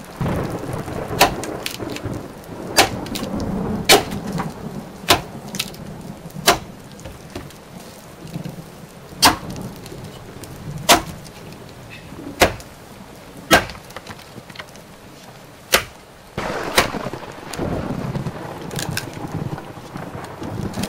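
Sharp knocks of an axe chopping into wood, irregular and one to two seconds apart, over a low rumble that swells at the start and again near the end.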